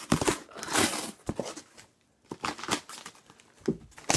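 A cardboard shipping box being worked open by hand: irregular crinkling and rustling of the box and its packing, with some tearing and a few sharp knocks, and a brief lull about two seconds in.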